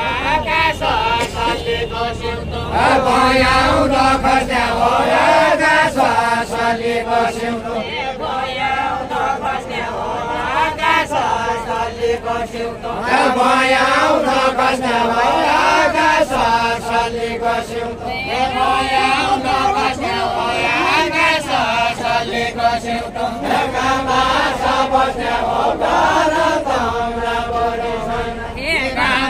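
Voices singing a Deuda, the Far-western Nepali folk song, in a chanted style, the melody going in short repeated phrases.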